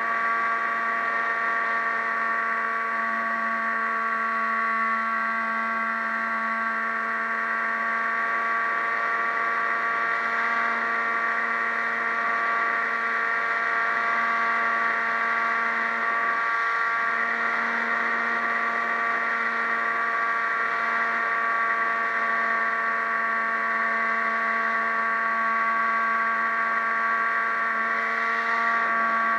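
Radio-controlled model plane's motor and propeller heard from on board: a steady whine held at one pitch, dipping briefly a little past halfway before coming back.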